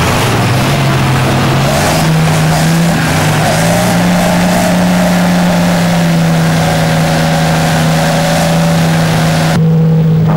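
Diesel engine of a Pro Stock pulling tractor running loud and steady at a fast idle, rising slightly in pitch about two seconds in. The sound changes abruptly near the end.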